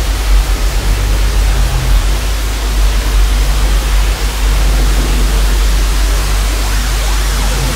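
Loud, steady hiss of detuned analogue TV static, over a deep, steady bass drone.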